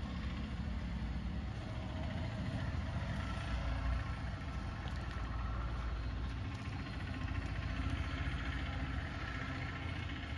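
An engine running steadily at idle, a low, even hum throughout.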